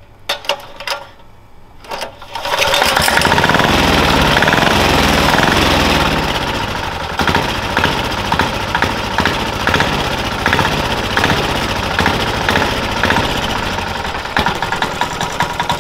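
Small single-cylinder turbocharged diesel go-kart engine starting after a few short sounds, about two and a half seconds in. It runs loud, then settles to a slightly lower, evenly pulsing idle about six seconds in.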